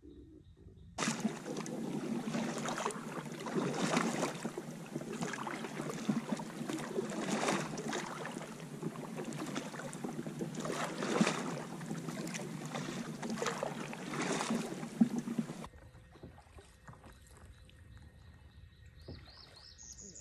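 Double-bladed kayak paddle strokes dipping and splashing in the water, with water rushing along the hull. It starts abruptly about a second in and cuts off suddenly after about fifteen seconds, leaving quiet.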